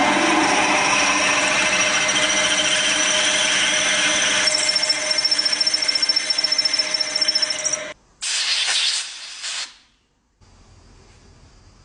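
Electric power tool running steadily with a high whine; the whine changes and begins to pulse about halfway through. It stops, runs again in a short burst of about a second and a half, then cuts off, leaving a faint low hum.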